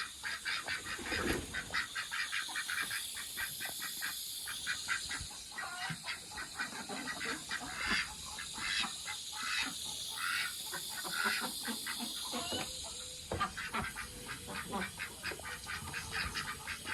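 A group of ducks calling excitedly, with a rapid, continuous run of quacks and chatter, over the steady hiss of water running into a pond as it is filled.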